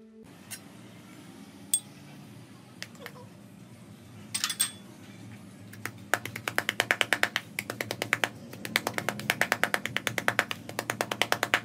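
Kitchen knife chopping frog meat on a plastic cutting board: fast, even strikes begin about halfway through and come in runs with short pauses. Before that there are a few single knocks and clicks.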